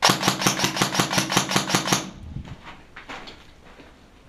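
Airsoft rifle firing a full-auto burst of about two seconds, roughly seven shots a second with a steady hum under them, starting and stopping abruptly. Faint scuffs and clicks follow.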